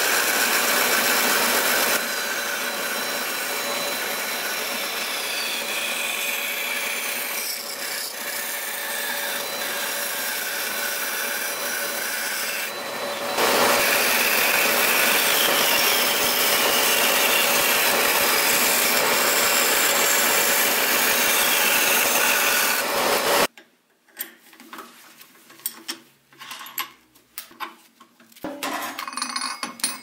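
Bandsaw cutting a dark hardwood block, a steady whir with the hiss of the blade through the wood. It drops in level about 2 seconds in, comes back louder about 13 seconds in, and cuts off about 23 seconds in, followed by scattered light knocks and clicks.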